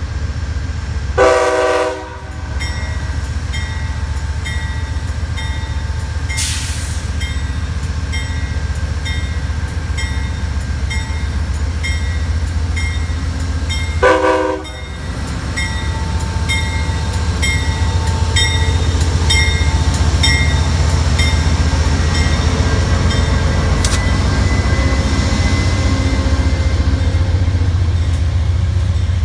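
Amtrak GE P42 diesel locomotive passing close by with a steady low engine rumble, sounding two short horn blasts, one about a second in and one about halfway, while a bell dings about twice a second. Its passenger cars then roll by with the rumble continuing.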